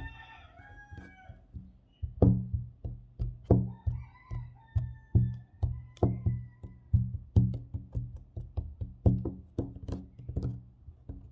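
Fingers tapping fast and hard on a table top, sharp knocks with a deep resonant thud, about two to three a second, starting about two seconds in. At the start and again midway there are thin wavering squeaks from fingers scratching and rubbing across the surface.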